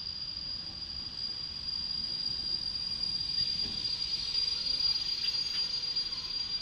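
ČD electric locomotive hauling an express train slowly past, a steady high-pitched whine over a low rumble that grows louder as it approaches.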